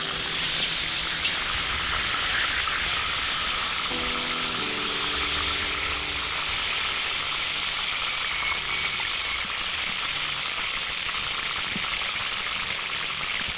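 Beef shanks, onions and cherry tomatoes sizzling steadily in a hot cast-iron cauldron as they are turned with a slotted metal spatula.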